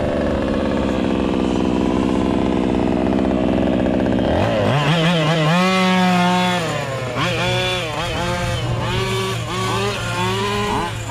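Two-stroke petrol engine of a large-scale RC car running steadily, then about four seconds in its pitch starts rising, holding and falling again and again as it revs up and down.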